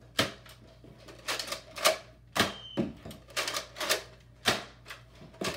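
Nerf blasters firing foam darts: about a dozen sharp clicks and snaps at an irregular pace.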